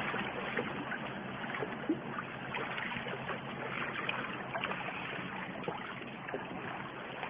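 Sea water lapping and gurgling among breakwater boulders, a steady washing sound with scattered small splashes and ticks.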